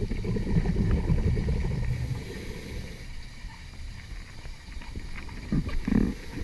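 Muffled underwater noise heard through a submerged camera's housing: a low rumble, loudest for the first three seconds, then quieter, with two short low thumps near the end.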